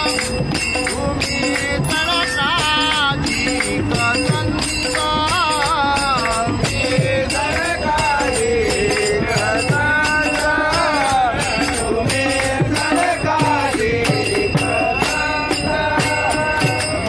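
Men's voices singing a Marathi devotional bhajan together, with small brass hand cymbals (taal) struck in a steady beat.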